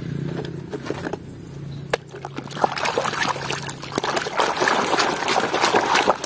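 Plastic toy bus being swished and scrubbed in a tub of muddy water, sloshing and splashing, starting about two seconds in. Before that, a low steady hum and a few clicks of plastic toys in a basket.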